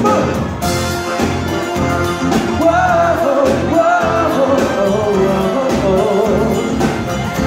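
A live pop band playing a song: a man singing into a microphone over keyboard and electric guitars, with a steady beat.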